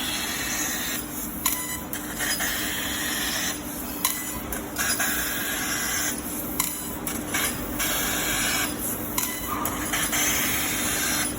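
CNC laser cutter cutting 10 mm steel plate: a steady hiss from the cutting head that stops and restarts every second or two as it works from cut to cut, over a faint steady machine hum.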